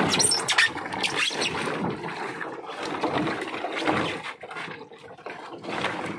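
Water sloshing and splashing in a styrofoam fish box as a whole tuna is shifted about in icy salt water by hand, with small knocks of the fish against the box.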